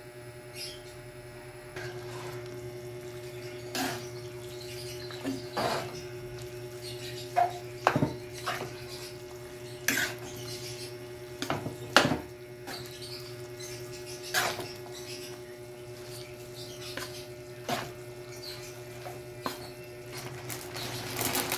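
Wooden spatula knocking and scraping against a large metal wok while rice noodles are stirred in the broth. The knocks are irregular, coming every second or two, with the loudest about 8 and 12 seconds in.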